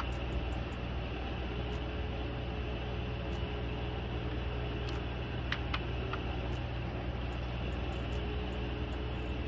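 Steady background hum and hiss, with a few faint clicks about five and a half to six seconds in.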